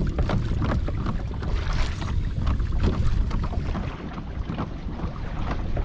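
Wind buffeting the microphone in a steady low rumble, with small waves lapping and slapping against the hull of a fishing kayak in irregular splashes.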